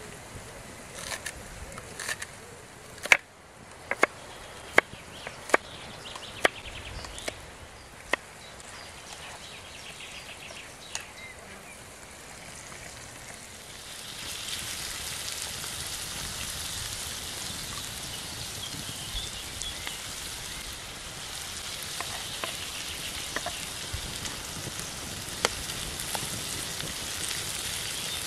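Knife chopping scallions on a wooden cutting board: about eight sharp knocks a little under a second apart. About halfway through a steady sizzle takes over: vegetables frying in a pan over a wood fire.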